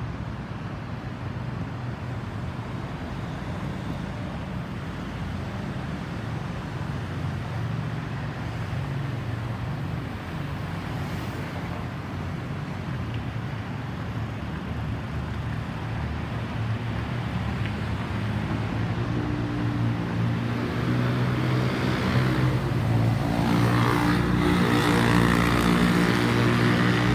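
A vehicle engine running steadily, growing louder over the last ten seconds, with a steady pitched hum coming in about two-thirds of the way through.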